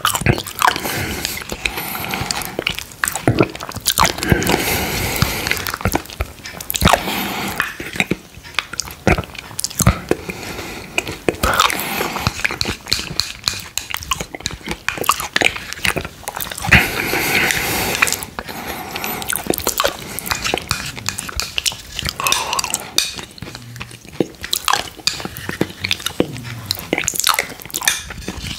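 Close-up wet mouth sounds of eating a soft quark dessert off a spoon: lip smacks, sucking and chewing in a quick irregular run of clicks, with the metal spoon now and then scraping the glass bowl.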